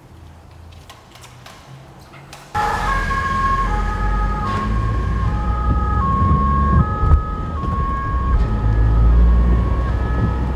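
Two-tone emergency-vehicle siren, German Martinshorn style, alternating between two pitches about every half second. It starts abruptly about two and a half seconds in, over a low rumble of road and engine noise from a car following the vehicle.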